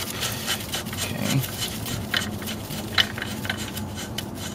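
Light, irregular metallic clicks and rubbing from a loosened nut being spun off its stud by gloved fingers, over a steady low hum.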